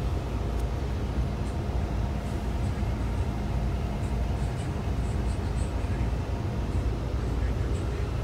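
Steady low rumble of a moving road vehicle, engine and road noise together, with a faint steady hum.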